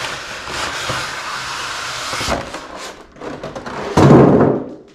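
Packaging being opened and pulled apart by hand: rustling and scraping of box material, with a few knocks and a louder rush of handling noise about four seconds in that lasts about half a second.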